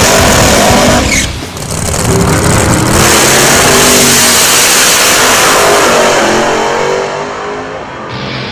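Pro Stock drag racing truck's V8 engine at full throttle as it runs down the drag strip, with a second drag car racing alongside. It is very loud, with a brief dip in level about a second in, and fades near the end as the vehicles pull away.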